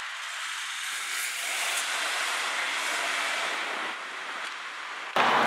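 Mercedes-AMG E63's twin-turbo V8 exhaust as the car pulls away, a rushing noise that swells over the first few seconds and then fades as it drives off. Near the end it is cut off abruptly by louder street traffic noise.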